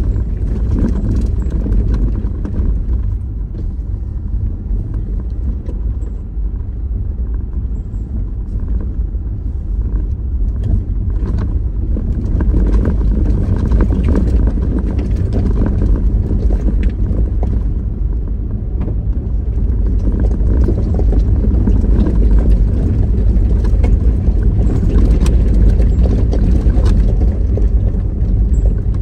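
Steady low rumble of a car driving, with scattered small knocks and rattles.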